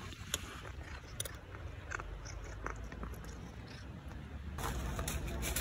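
Cats crunching dry kibble close by: irregular, crisp crunching bites and chewing. Near the end a louder, steady low rumble comes up underneath.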